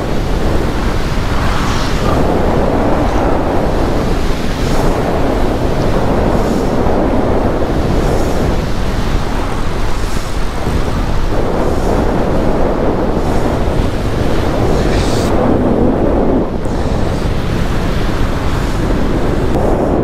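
Strong wind rushing over the camera microphone in flight through gusty storm air: a loud, dense rush that swells and eases every couple of seconds.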